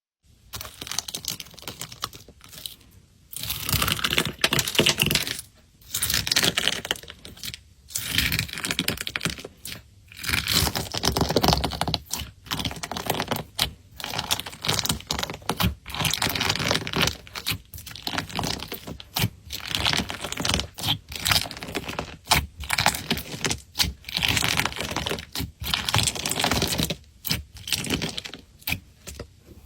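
Slime being squished, stretched and poked by hand, giving rapid crackling clicks and pops in bursts a few seconds long with short pauses between.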